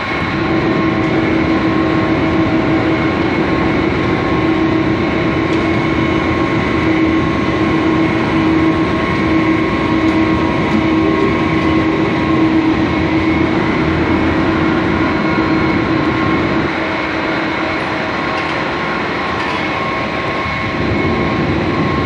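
Steady factory machinery noise from a multi-layer veneer hot-press dryer at work: a continuous hum with a steady tone in it over a broad hiss. The level drops a little about two-thirds of the way through and comes back up near the end.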